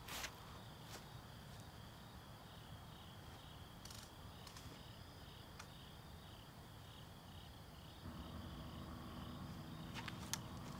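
Faint crickets chirping in a steady pulsing chorus, with a few light clicks. A low steady hum comes in about eight seconds in.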